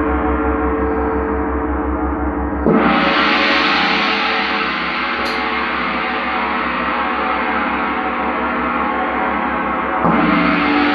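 Large Paiste gong played with a soft felt mallet, ringing on without a break. Fresh strikes about a quarter of the way in and again near the end make it swell louder and brighter.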